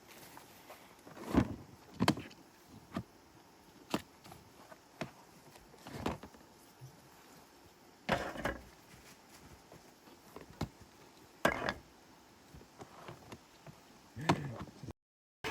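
Irregular sharp knocks and thuds, a dozen or so, with a few louder ones among them, as of hard objects being handled and set down.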